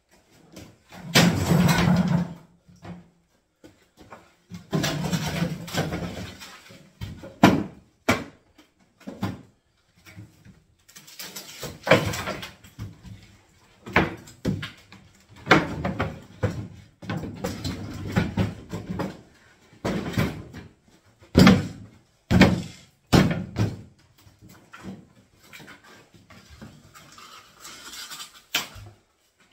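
Old kitchen units being broken apart by hand: a string of irregular bangs and knocks with scraping and creaking between them.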